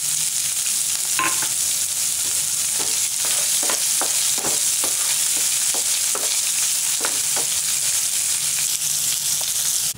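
Freshly added chopped onion and green chillies sizzling in hot oil in a frying pan, a wooden spatula stirring them in repeated scraping strokes about twice a second.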